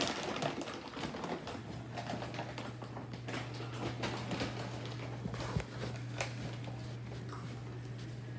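Irregular light clicks and taps, with a steady low hum that starts about two seconds in.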